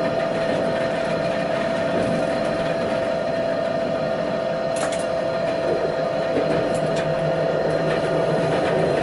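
Tatra T6 tram running at about 55 km/h, heard from the driver's cab: a steady running rumble with a steady whine over it, and a couple of sharp clicks about five and seven seconds in.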